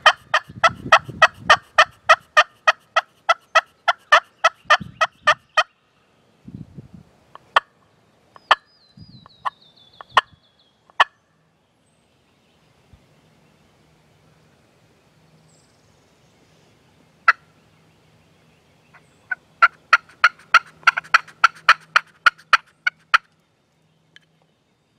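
Turkey calling: a long run of evenly spaced sharp notes, about four a second, then a few single notes, and a second run near the end.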